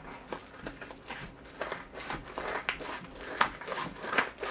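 Scissors snipping through a paper mailer envelope, with the paper crinkling as it is held and pulled. It comes as an irregular run of short cuts and rustles, one louder snip or rip about three and a half seconds in.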